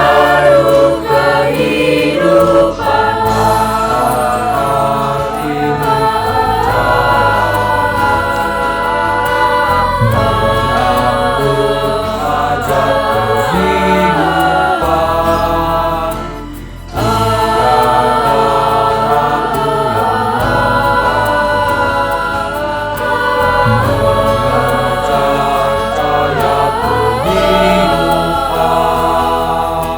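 High school choir singing in parts over a low sustained accompaniment, with a brief pause about halfway through.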